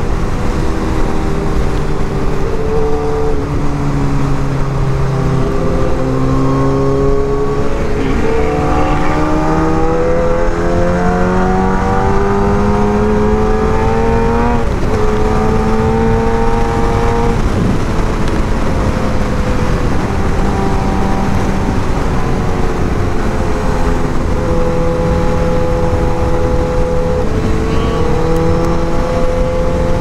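Suzuki GSX-R1000 inline-four engine running at highway speed over steady noise. Its note sinks slowly for the first few seconds, climbs for about seven seconds from about eight seconds in, drops sharply about halfway through, then holds fairly steady.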